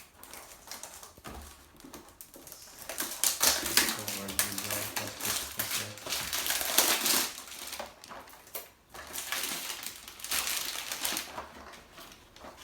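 Packaging being handled and torn open as a box is unpacked: rapid rustling and crackling, loudest in a long stretch in the middle and again briefly near the end.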